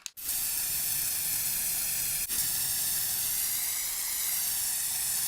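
A steady, even hiss that starts suddenly and holds level, with one faint click about two seconds in.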